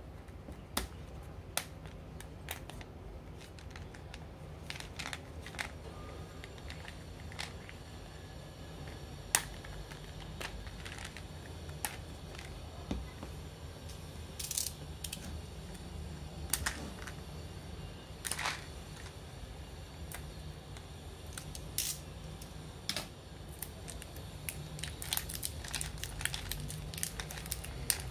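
Hands handling a plastic supplement bottle and picking at its printed seal: irregular small clicks, taps and crinkles of plastic and seal material, over a steady low hum.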